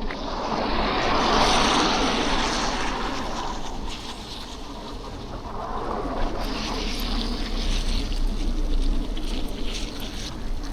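Motor traffic passing on a snowy, slushy city street: a wet tyre hiss swells and fades twice, over a steady low rumble of traffic.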